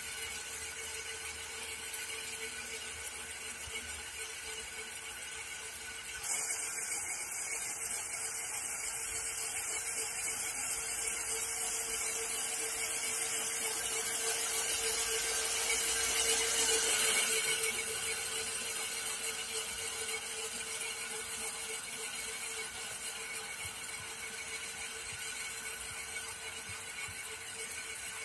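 Krot electric cultivator, its motor driven through a frequency converter, running with a steady high whine as it tills soil. The sound gets louder and closer from about six seconds in until about seventeen seconds, then falls back.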